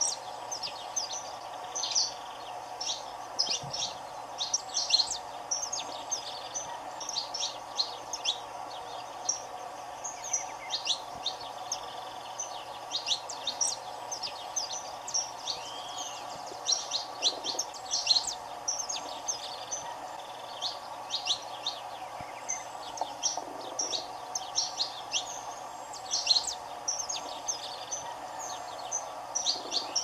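Saffron finch (canário-da-terra) singing: phrase after phrase of short, quick high chirps and trills, over a steady low background hum.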